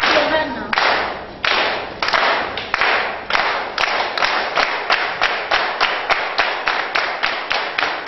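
A roomful of people clapping together in rhythm. The beat speeds up from about one and a half claps a second to about three a second.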